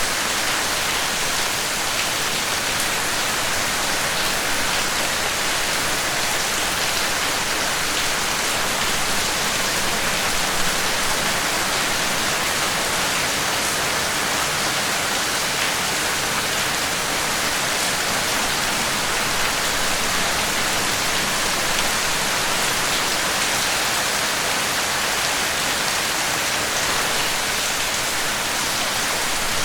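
Steady rain, an even hiss of many drops falling on a surface, with no change in intensity.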